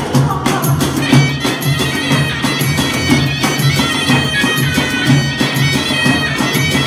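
A qara zurna (Azerbaijani double-reed shawm) playing a held, ornamented melody over a steady nağara drumbeat; the zurna line comes in about a second in.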